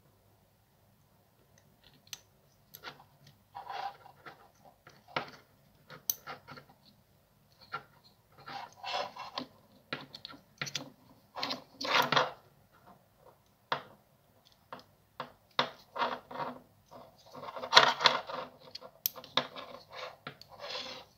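Irregular clicks and scrapes of metal spade terminals and a small screwdriver against a Makita impact driver's plastic trigger switch, as the connectors are worked on its tabs. The loudest scraping comes in two spells, about halfway through and near the end.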